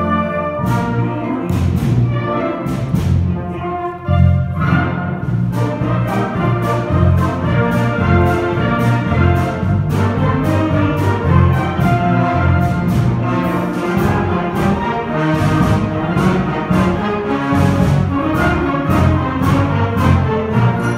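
Live orchestra playing a piece with a steady beat. The sound drops away briefly about four seconds in, then the full ensemble comes back in.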